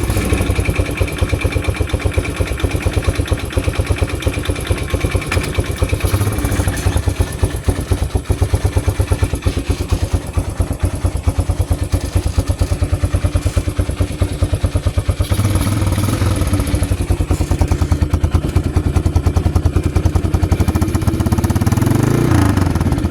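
A vehicle's engine catches and runs with a rapid, even exhaust beat. It rises briefly in revs and drops back near the end.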